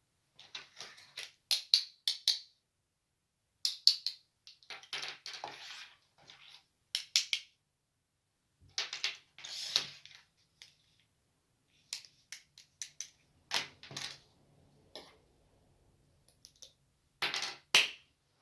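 Small plastic toy-kitchen pieces being handled, with irregular clusters of sharp clicks and taps and a few short scraping, rustling stretches between pauses.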